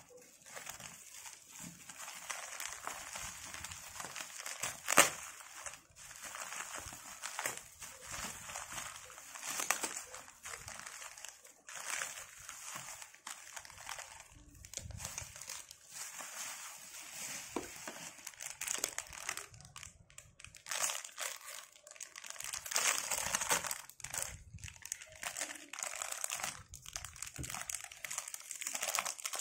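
Bubble wrap and a plastic bag crinkling and rustling irregularly as a parcel is cut open with scissors and unwrapped, with one sharp crack about five seconds in.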